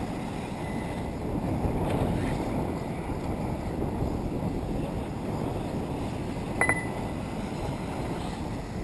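Wind rumbling on the microphone over outdoor track ambience, with a short double electronic beep about two-thirds of the way through.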